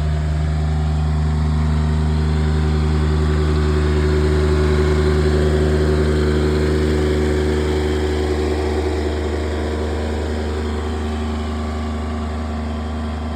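John Deere 455 garden tractor's diesel engine running steadily at a constant speed. It swells slightly about four to six seconds in, and its tone shifts a little about eight seconds in.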